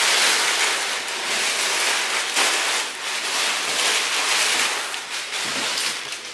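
Crumpled brown kraft packing paper rustling and crinkling as it is pulled by hand out of a wooden shipping crate, a continuous dense crackle that eases off near the end.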